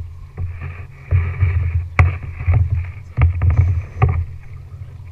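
Kayak moving through the water: low rumbling surges of water against the plastic hull, with several sharp knocks of paddles against the boat, the loudest about two seconds in.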